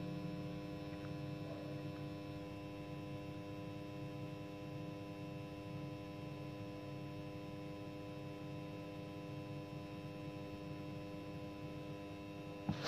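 Steady electrical hum made of several fixed tones, with a brief click right at the end.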